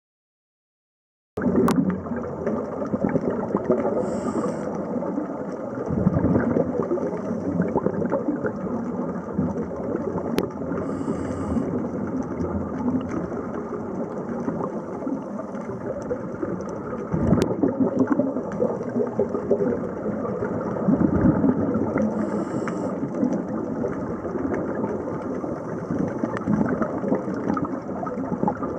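Muffled underwater noise picked up by a camera in its housing: a steady crackling, gurgling wash of water sound. It starts after about a second of silence.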